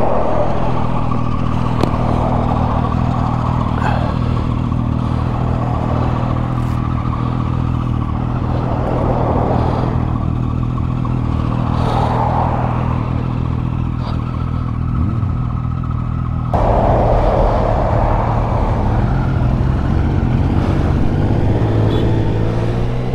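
Yamaha Tracer 9 GT's 890 cc three-cylinder engine running at a steady pitch. The sound changes abruptly about two-thirds of the way through.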